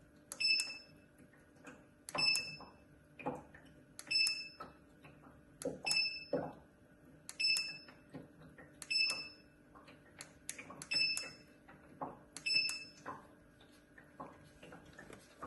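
Water-vapour electric fireplace's control unit giving a short high electronic beep each time a remote-control button is pressed, eight beeps about every one and a half to two seconds, as the timer setting steps through its hours. Fainter clicks and knocks come between the beeps.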